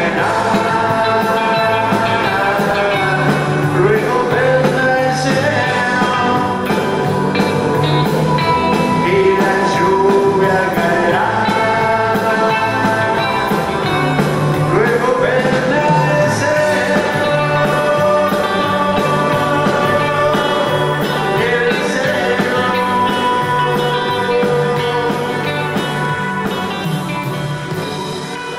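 Live band playing a song, with a man singing over electric guitar, bass, keyboard and drums; the sound fades out near the end.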